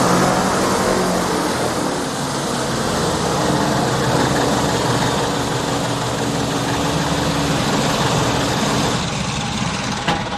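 Single-engine propeller aircraft engine running steadily as the light plane taxis, its sound easing off near the end.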